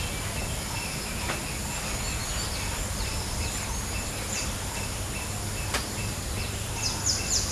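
Outdoor bird ambience: scattered short falling chirps over a steady background hiss and a repeated pulsing high note. Near the end a bird starts a rapid, louder run of falling calls, about three a second.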